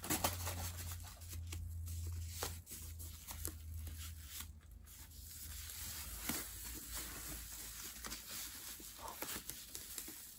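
Clear plastic protective film and foam wrap rustling and crinkling as tape is peeled off and the wrapping is worked loose from a quilted leather shoulder bag, with scattered soft crackles. A low hum sits underneath for about the first half.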